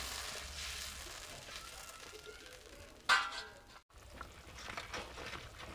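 Faint simmering of papaya pieces in water in a cooking pan, a low hiss that dies away, with a brief ringing clink about three seconds in.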